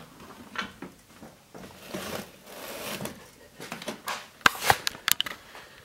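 Handling noise: soft rustling, then a quick cluster of sharp clicks and taps about four and a half to five seconds in.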